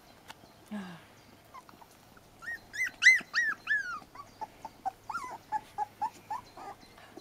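Nursing Puli puppies whimpering and squealing as they crowd and push for a teat. A run of loud, high squeals comes around the middle, followed by a quick string of shorter whimpers.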